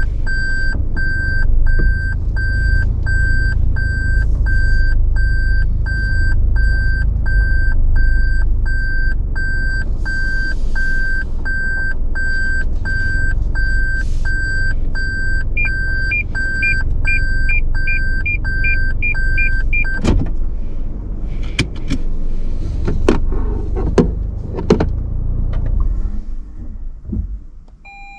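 Toyota Land Cruiser Prado's reverse warning beeping in the cabin, about one and a half beeps a second, over the low rumble of the running engine; about two-thirds of the way through, a faster, higher beeping of the parking sensors joins as the car backs toward an obstacle. Both beeps stop together, followed by several sharp clicks and knocks, and the engine rumble fades out near the end.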